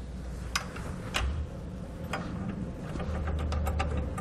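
Light metal clicks from a bolt with a lock washer being threaded by hand into a wire-fed handle nut behind a tow base plate bracket: a few separate clicks, then a quick run of small ticks about three seconds in, over a low steady hum.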